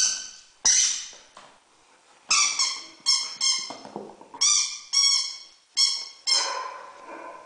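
Rubber squeaky toy being squeezed over and over in a German Shepherd puppy's jaws as it chews: about ten sharp, high squeaks, some in quick pairs.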